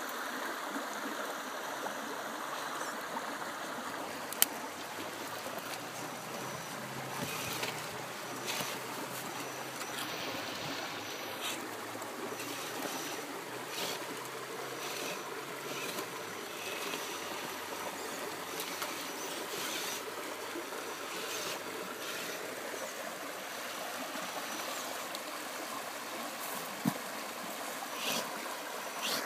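Steady rush of river water flowing over rocks, with scattered light clicks and knocks from the RC rock crawler bumping over the boulders; one sharp click comes about four seconds in.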